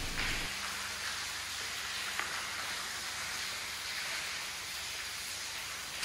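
Water dripping and trickling inside an old road tunnel: a steady rain-like hiss, with one faint drip tick about two seconds in.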